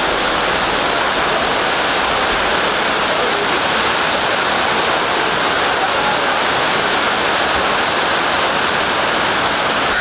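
Mountain waterfall and its stream cascading over boulders: a steady, even rush of water.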